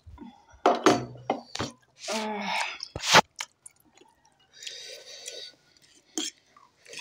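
People eating at a table: chewing and slurping of noodles and pani puri, with a few sharp clicks of spoons against steel and china dishes.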